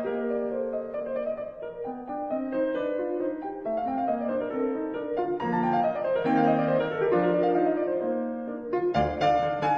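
Background piano music, a melody of short notes over changing chords.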